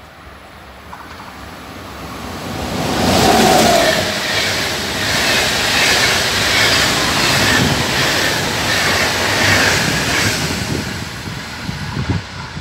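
A passenger train of DB Intercity coaches passes close by at speed. It builds as it approaches and is loudest about three seconds in. A steady rush of wheels on rail follows, with a regular clatter as the wheelsets go by, and it fades away near the end.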